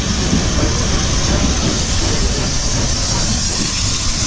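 Steam locomotive moving slowly beneath, a steady hiss of steam over a low rumble of the engine and wheels.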